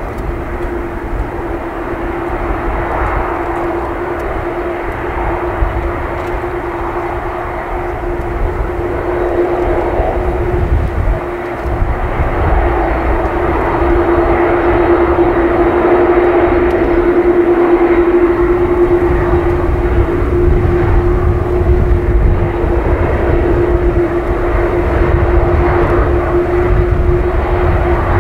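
Four General Electric CF6 turbofans of a Boeing 747-400 running at taxi power: a steady whine over a low rumble. It grows louder about halfway through as the jet comes closer.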